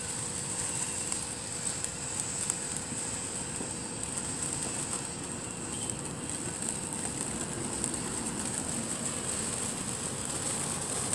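Steady crackling hiss of a ground fountain firework spraying sparks.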